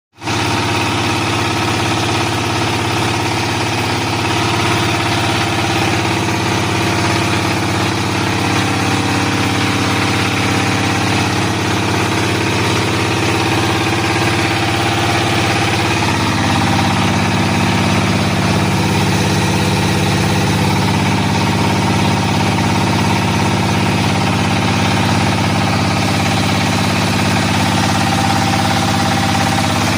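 Floating fish-feed pellet extruder machine running with a steady mechanical hum; its tone shifts slightly about halfway through.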